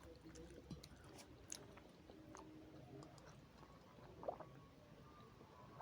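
Faint chewing of noodles, with small wet mouth clicks and squishes scattered throughout and one sharper click about four seconds in.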